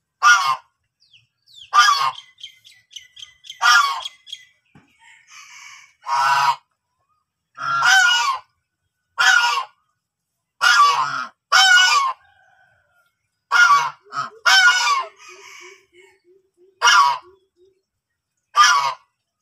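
White domestic geese honking: about a dozen loud calls, one every second or two, with softer sounds in the gaps between them.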